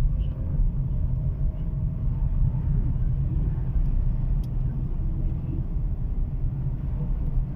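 A car's engine and road noise heard from inside the cabin while driving, a steady low rumble.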